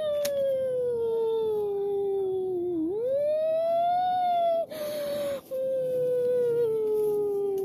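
A long, unbroken howl-like wail that slowly falls in pitch, dips and swoops back up about three seconds in, then falls again. A short hiss cuts across it about five seconds in.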